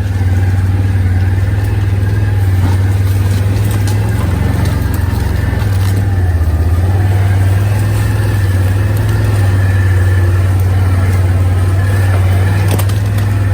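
ATV engine running steadily as it drags a log, with scattered small knocks and clicks.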